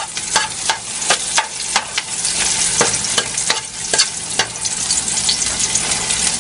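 Sliced onions sizzling in hot oil in an aluminium pot on full heat, with a steady hiss and a spoon knocking and scraping against the pot about three times a second as they are stirred.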